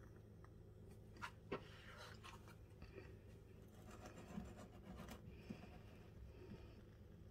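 Faint handling sounds of a ceramic wax melt burner: two light clicks, then soft scraping and small knocks as the lit tealight and the wax melt on the bowl are set in place.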